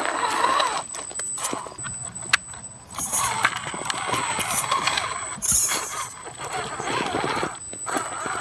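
Scale RC rock crawler (custom Jeep JK on a Vaterra Ascender chassis with SCX10 axles) climbing rock: its electric motor and geared drivetrain whine, rising and falling in pitch as the throttle comes on and off, with a sharp click of the truck on the rock about two seconds in.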